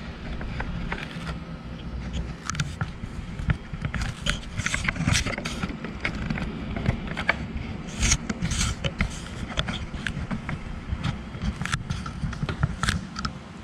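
Irregular clicks, taps and short scrapes of small parts being handled on an ATV handlebar while a thumb-throttle housing is fitted, over a low steady rumble.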